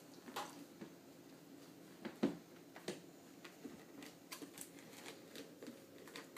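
Light, scattered clicks and scratches of small puppies' claws and paws on a plastic tub and its cloth lining as they walk about, with a louder knock a little over two seconds in.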